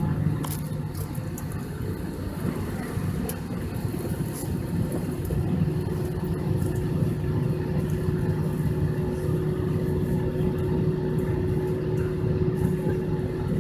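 Steady low hum inside an Airbus A321 cabin on the ground, with a faint steady whine above it.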